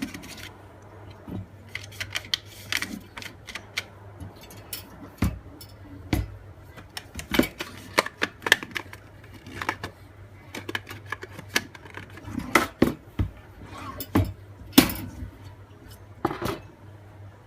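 Irregular clicks, taps and knocks from hands handling craft materials and the bird cage, with one sharper knock near the end.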